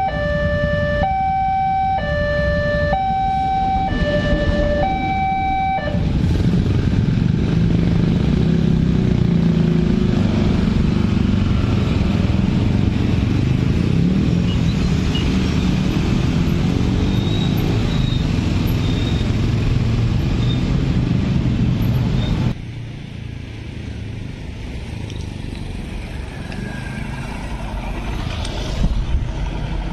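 Level-crossing warning alarm sounding an alternating two-tone chime about once a second, which stops about six seconds in. Then many motorcycle and scooter engines run together as traffic moves off and crosses the tracks, with the traffic noise dropping to a lower level about two-thirds of the way through.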